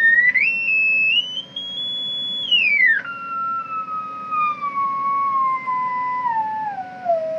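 Audio test tone coming from a small AM radio's speaker, received from a homemade AM transmitter. The tone steps up in pitch, drops sharply about three seconds in, then falls step by step to a much lower pitch as the modulating frequency on the function generator is turned down.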